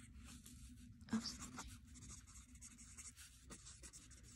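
Pen writing on lined notebook paper: faint, scratchy strokes as words are written out.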